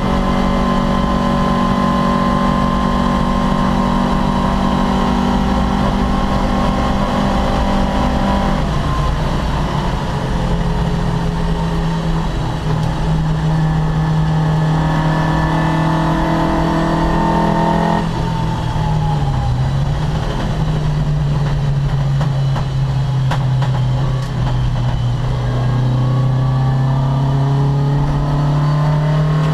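Opel Kadett C race car's engine running hard under load, with sudden drops in pitch from gear changes about a third of the way in and just past the middle, then pulling up through the revs again.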